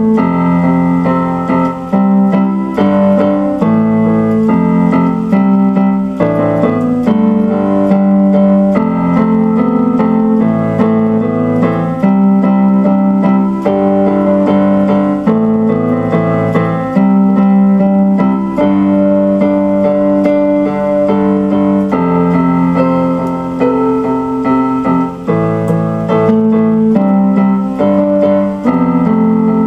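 Digital keyboard played in a piano voice: slow sustained chords that change every second or two.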